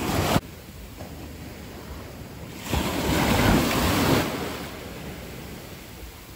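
Sea waves washing onto the beach. A loud rush cuts off sharply just after the start, then one surge swells up about three seconds in and slowly dies away.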